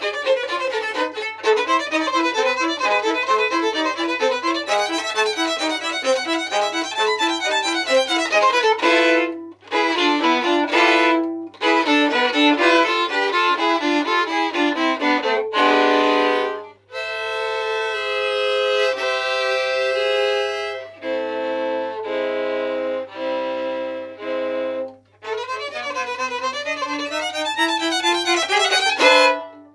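Two violins playing a duet together: fast running passages with a few short breaks, a stretch of longer held notes in two parts from about halfway, then quick figures again until the music breaks off abruptly at the end. A faint steady low hum sits underneath.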